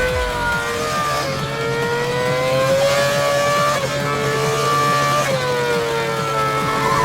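Race car engine from a racing video game, running hard; its pitch drops sharply a few times and climbs again, as at gear changes.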